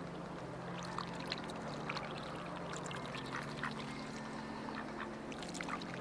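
Ducks quacking briefly now and then over a steady trickle of running water.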